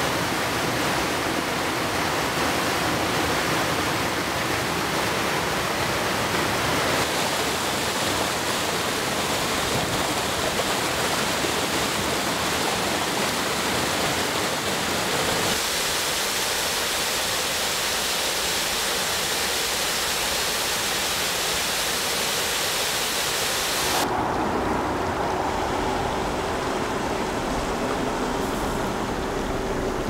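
Water rushing and splashing over rock ledges in a small cascade, a steady loud hiss. About halfway through, it changes to a thinner rush from a snow- and ice-covered waterfall that is still flowing. Near the end it turns duller and lower, with a faint steady hum.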